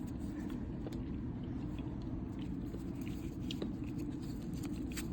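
Faint clicks and light rustling of trading cards being handled and flipped, over a steady low hum.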